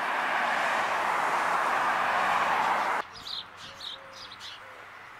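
A steady rushing noise that swells slightly and cuts off abruptly about three seconds in. After the cut, small birds chirp in short high calls, with a few soft, low whistled notes.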